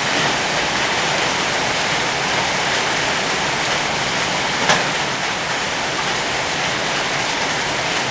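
Heavy rain pouring down in a summer thunderstorm, a steady loud rush, with one sharp knock about halfway through.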